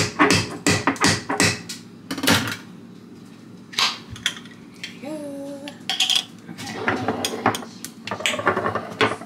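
Knocks and clinks of glass jars being handled, with a jar's screw lid twisted open by hand, and a short hum about five seconds in.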